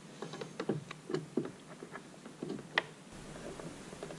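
Irregular small clicks and taps of hard plastic parts being handled as an LED headlight bulb and its wiring plug are worked into a Ski-Doo snowmobile's headlight housing, with one sharper click about three seconds in.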